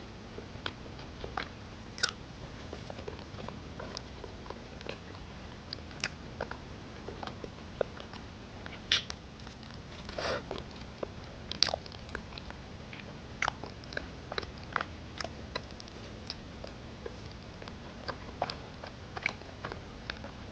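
Close-miked eating sounds: chewing with irregular sharp wet mouth clicks and smacks, a few of them louder.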